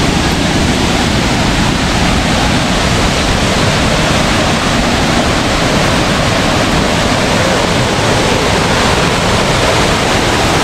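River water pouring over a waterfall: a loud, steady rush.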